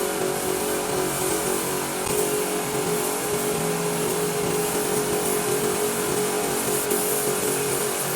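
A motor running steadily with a constant whine and no change in load.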